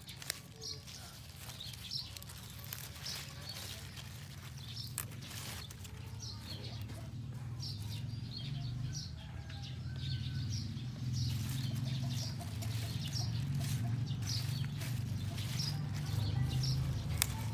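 Red leaf lettuce leaves being snapped off by hand, with short crisp snaps and leaf rustling. Birds chirp repeatedly in the background over a low steady rumble that grows louder toward the end.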